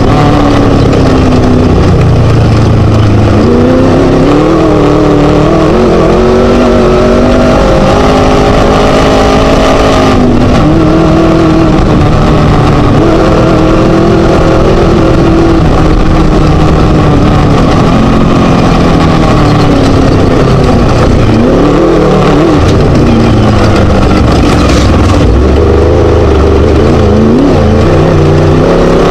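Class 1 desert race buggy's Scat engine running hard, its pitch climbing and dropping again and again with throttle and gear changes, under a constant rough noise of the car at speed.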